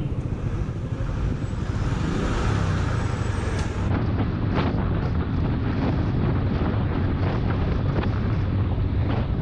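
Steady riding noise of a Suzuki Gixxer SF motorcycle on the move: wind and road hiss over a low engine rumble. About four seconds in, the highest part of the hiss drops away abruptly.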